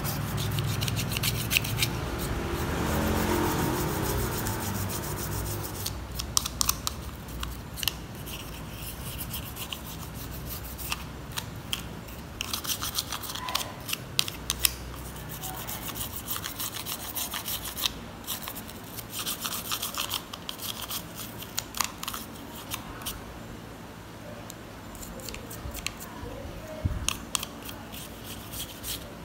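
Small brush scrubbing a plastic Nokia 1280 phone housing: scratchy back-and-forth brushing strokes in short bursts.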